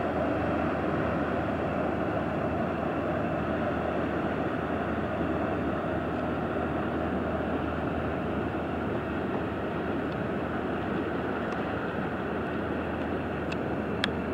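Steady low drone of a passing inland cargo barge's diesel engine over an even rushing noise of water and wind, with a single sharp click near the end.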